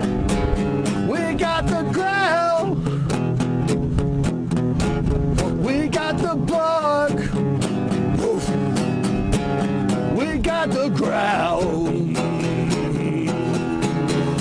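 An acoustic guitar strummed steadily, with a man singing over it in a few phrases.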